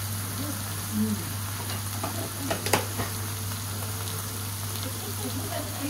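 Food frying on a teppanyaki iron griddle, a steady sizzle, with one sharp click about halfway through.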